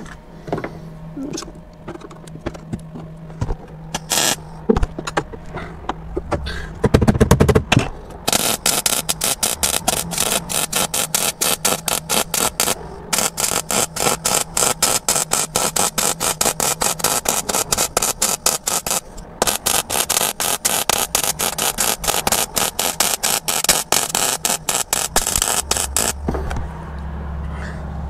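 MIG welder crackling as it welds a steel subframe connector into a car's floor pan. The crackle starts about eight seconds in, breaks off briefly twice and stops shortly before the end. Before it there are a few scattered clicks and a low thump as the gun is set in place.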